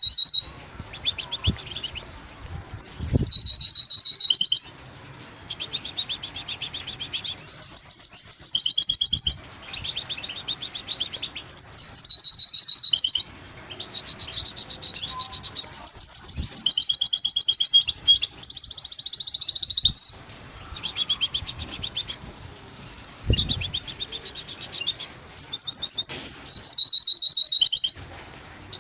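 Goldfinch × canary hybrid (bandouk mule) singing in its cage. Its song comes as repeated high phrases of rapid trills and twittering notes, each lasting a second or two, with short pauses between.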